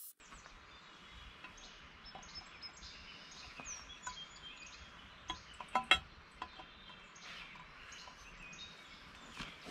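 Birds chirping over low outdoor background noise, with a few sharp clicks a little over halfway through.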